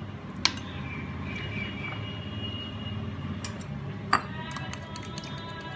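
A spoon clinks against a bowl: a sharp clink about half a second in and two more a little before the end, each ringing briefly. A run of quick light taps follows near the end, over a steady low hum.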